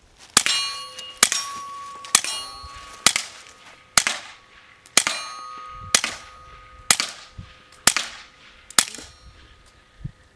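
Suppressed Smith & Wesson M&P 22 pistol with a Liberty Cans Lucky Bee suppressor, firing .22 LR in slow, steady shots: ten shots about a second apart. Most shots are followed by a clear metallic ring.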